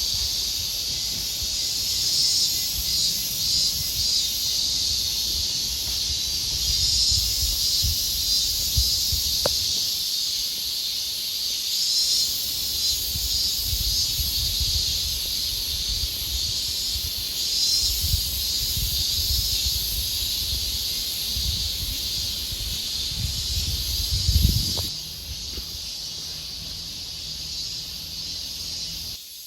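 Cicadas buzzing in a steady, high-pitched chorus, with wind rumbling on the microphone in gusts that die away near the end.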